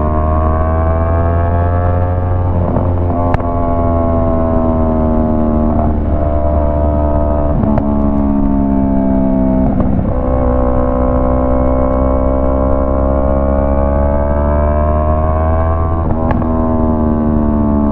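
Yamaha MT-03 motorcycle engine running loud through a Jeskap aftermarket exhaust with the dB killer out, while being ridden. The engine note climbs slowly and breaks off into a lower pitch several times, with a low rumble underneath.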